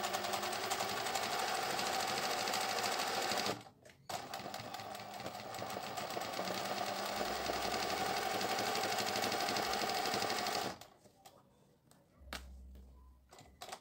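Singer 20U industrial zigzag sewing machine running fast, stitching a dense fill into the centre of a felt flower appliqué. It stops briefly about three and a half seconds in, runs again, then stops for good near the end.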